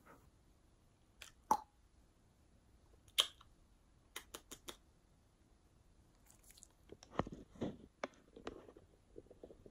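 A border collie's mouth close to the microphone: scattered soft clicks and wet smacks of licking and mouthing, a few at a time with pauses between.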